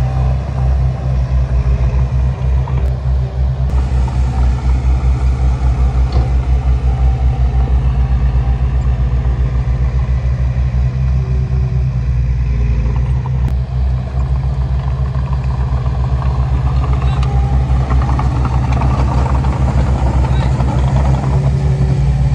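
Heavy earthmoving machine's diesel engine running steadily and loud, with a fast, even low throb.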